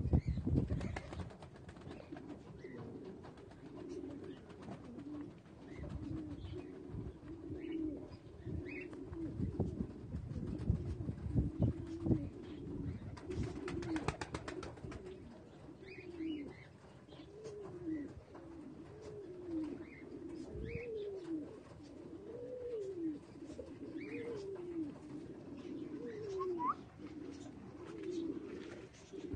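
Domestic pigeons cooing, a run of low rising-and-falling coos about once a second that grows more regular in the second half. A few knocks and rustles come around the middle.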